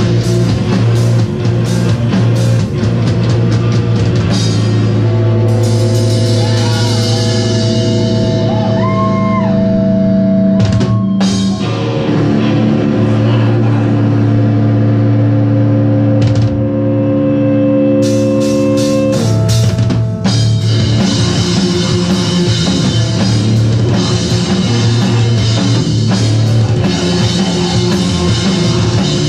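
Live hardcore punk band playing loud distorted electric guitars over a drum kit. About four seconds in, the drums mostly drop out under held guitar chords. They kick back in about twenty seconds in and the full band plays on.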